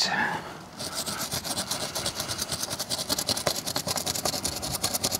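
Toothbrush bristles scrubbing rapidly back and forth over raised decal lettering on a caravan's side panel, a fast, even run of brushing strokes that starts about a second in.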